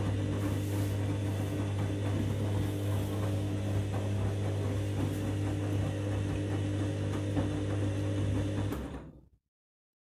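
Candy front-loading washing machine tumbling laundry in a very sudsy rinse: a steady motor hum with the wash sloshing and fizzing in the drum. The hum stops near the end and the sound cuts off abruptly to silence.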